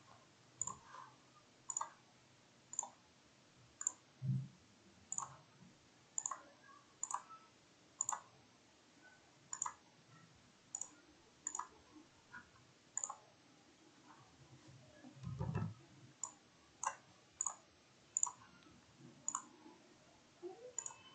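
Computer mouse button clicking, sharp single clicks at irregular intervals of about a second, as wires are placed in a schematic editor. Two dull low thumps sound, about four seconds in and again past the middle.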